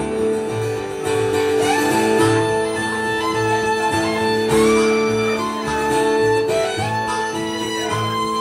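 Instrumental break by an acoustic string band: fiddle and harmonica carry the melody over strummed acoustic guitar and a plucked upright bass keeping a steady pulse.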